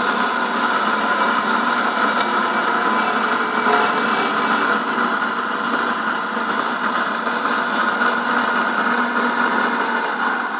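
Manual vertical milling machine running steadily, its end mill cutting a wooden practice turbine-wheel blank. The sound eases slightly near the end.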